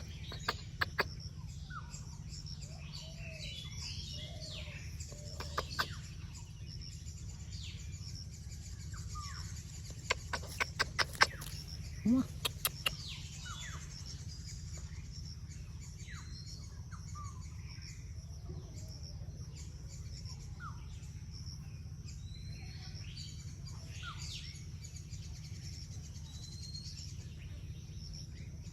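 Several small birds chirping and calling with short, quick up-and-down notes throughout. Sharp clicks come in quick runs near the start, around six seconds in and about ten to thirteen seconds in, over a steady low hum.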